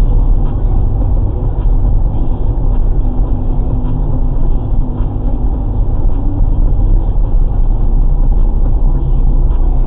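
Car driving at low speed, about 40 km/h, heard through a dashcam microphone inside the cabin: a steady rumble of engine and road noise, heaviest in the low end.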